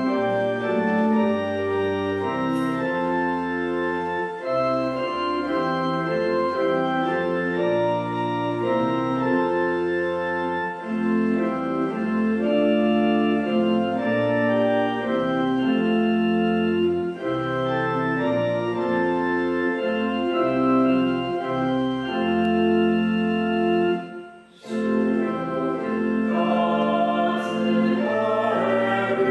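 Church organ playing a hymn in slow, sustained chords, with a brief break about 24 seconds in. After the break, voices start singing along with it near the end.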